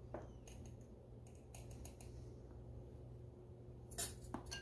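Light clicks and taps of a metal spoon against a glass canister and glass mixing bowl while scooping out cornmeal, with a sharper click about four seconds in.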